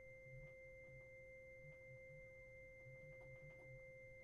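Two faint, steady pure tones held without change, one middling and one higher and whistle-like, as in a sustained drone of an experimental sound piece. A faint, irregular low pulsing sits beneath them.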